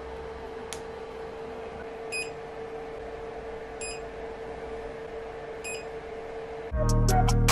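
Three short electronic beeps from the FLSUN Super Racer's touchscreen as its buttons are pressed, over a steady hum. Music starts near the end.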